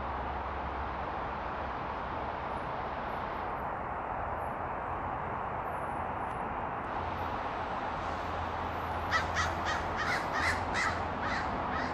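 A quick run of about eight short animal calls near the end, over a steady rushing background.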